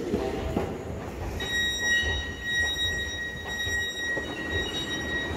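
Siemens C2 U-Bahn train standing at the platform, giving a steady high-pitched electrical whine that sets in about a second and a half in, over a low rumble.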